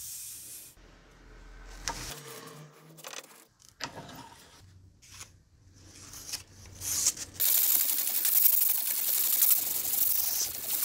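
Sandpaper sheets rustling and clicking as they are handled. From about seven seconds in, a steady scratchy hiss of sandpaper rubbing on the steel of a yanagiba sashimi-knife blade.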